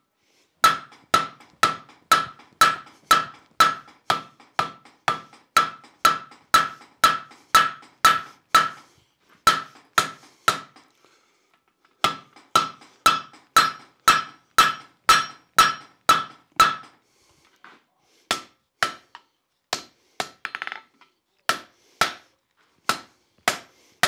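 Hand-hammer blows on red-hot steel at the anvil as the bar is drawn out. They come about two a second, each with a ringing tone from the anvil, break off briefly twice, and come more sparsely near the end.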